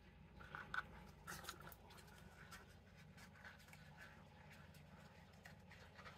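A plastic tongue-depressor stick scraping and tapping against the inside of a small mixing cup as mica-tinted epoxy resin is scraped out, a cluster of faint scratchy clicks in the first two seconds. After that, near silence over a low steady hum.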